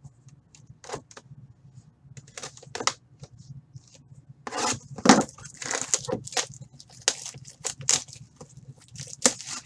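Cellophane wrap being torn off a Panini Prime hockey card box and the box opened: plastic crinkling and cardboard crackling in a run of short rustles, sparse at first and much busier from about halfway in.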